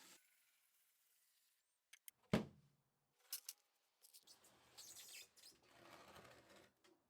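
Faint handling noises: a single sharp knock a little over two seconds in, a few light clicks, then a few seconds of scraping or rustling.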